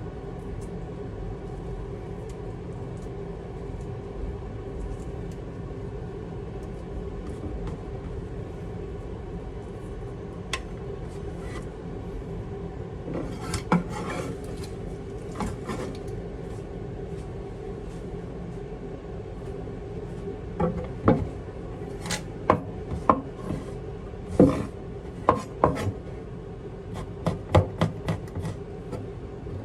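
Kitchen food preparation: scattered knocks and scraping strokes of utensils against a hard surface over a steady hum, the knocks coming more often in the second half.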